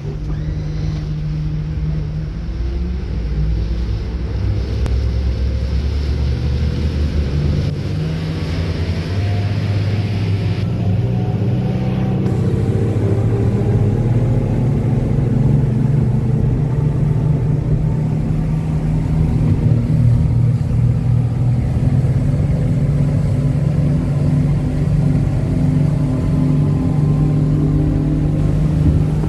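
Yamaha 250 V6 outboard motor running under way, heard from inside the boat's cabin. Its pitch climbs a little over the first dozen seconds as the engine speeds up, then holds steady.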